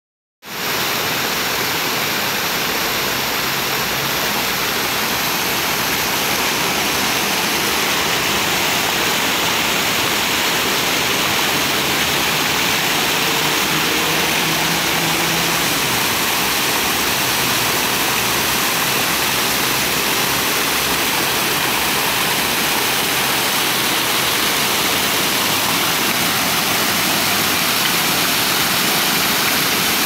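Many jets of an ornamental fountain falling into its basin: a steady, unbroken rush and splash of water.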